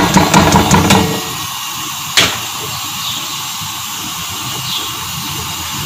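Sliced onions tipped into hot cooking oil in a pot, landing with a clatter of small impacts in the first second, then frying with a steady sizzle. A single sharp knock about two seconds in.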